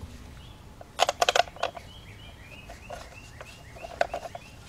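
A quick run of sharp clicks about a second in, and a short cluster again near the end, from hand tools and bolts being handled while a timing cover is bolted on. Between them a bird chirps over and over, short and repeated.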